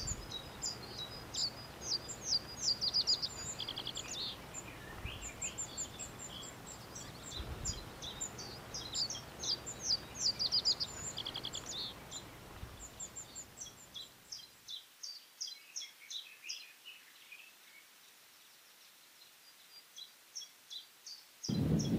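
Several small birds singing with many quick high chirps and rapid trills, over a faint low background noise that cuts off about two-thirds of the way through while the birdsong continues.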